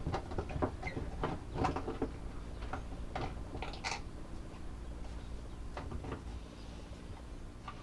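Clicks, light knocks and rattles of a controller enclosure and probe cable being handled as the cable is fed through a hole in the box, busiest in the first four seconds, then a few scattered clicks.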